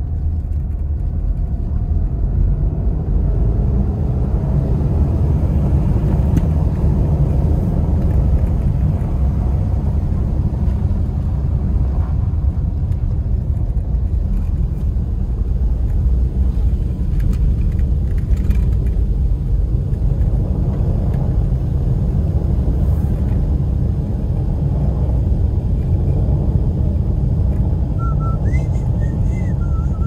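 Steady low rumble of a car driving on a snow-packed road, heard from inside the cabin: engine and tyre noise.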